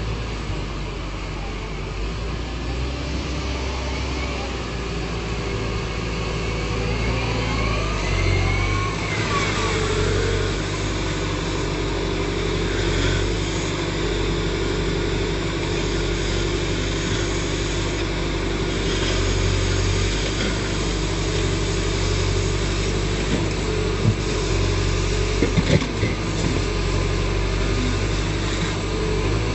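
Backhoe loader's diesel engine running steadily under work, its pitch sweeping up and down for a few seconds about a third of the way in. Several sharp knocks come close together near the end.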